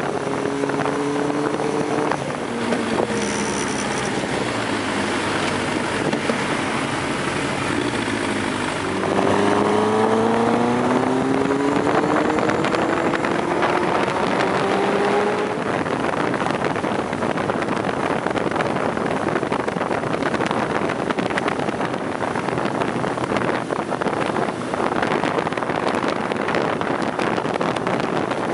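Motorcycle engine heard from the bike itself, with wind rushing over the microphone. The revs drop about two seconds in, then around nine seconds the engine note jumps up and climbs steadily for several seconds as the bike accelerates, after which wind noise at speed covers most of the engine.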